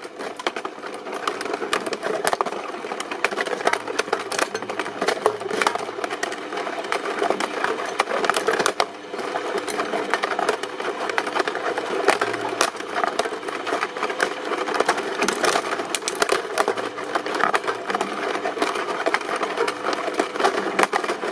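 Dense, steady crackling and clicking of material being crushed in a press machine.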